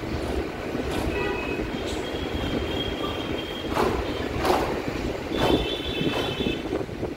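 MMTS suburban electric train running along the track with a steady rumble. Several clanks come in the second half, and there are two stretches of thin, high squealing.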